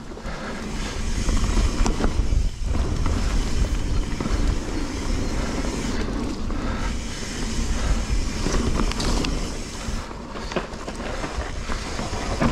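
Mountain bike ridden along a dirt trail, heard from a rider-mounted action camera: tyres rolling on the ground and the bike rattling with scattered clicks, over a constant rumble of wind on the microphone.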